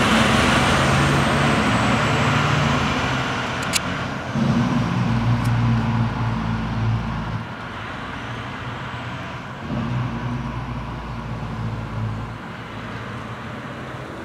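Fire ladder truck's diesel engine running as the truck drives off down the street, fading as it goes. The engine sound swells twice, about four and ten seconds in.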